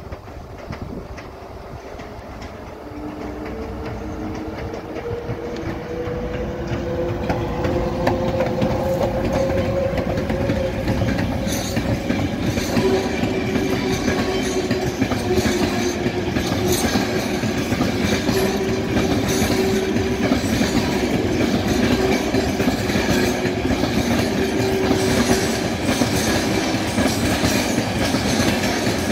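Two NSB El 16 electric locomotives pulling a freight train away from a standstill, their whine rising slowly in pitch as they gather speed and then holding steady. The train grows louder as it passes, and the empty timber wagons that follow make a steady clickety-clack over the rail joints.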